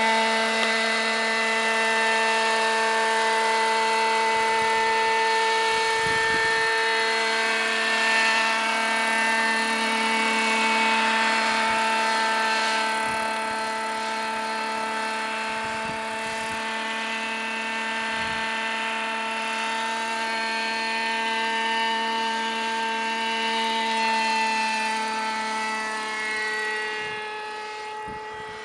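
Petrol-engined radio-controlled model helicopter, a Vario scale Robinson R22, in flight: a steady whine of engine and rotors holding one pitch. It grows fainter near the end as the model climbs away.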